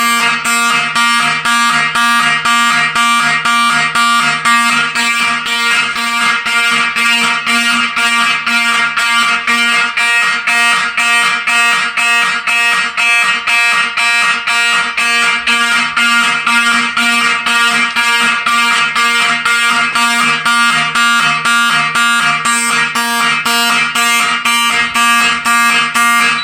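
Fire alarm horns sounding the evacuation signal in march time, loud pulses at about two a second, after a System Sensor 2400 smoke detector has been activated. The signal cuts off suddenly at the end when the alarm is silenced.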